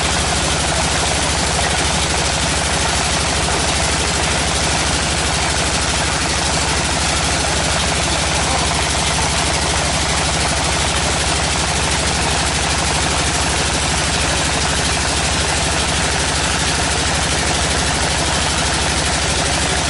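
Tractor-mounted water well drilling rig running steadily: a loud, even engine sound with a fast low pulsing under a constant hiss, unchanged throughout.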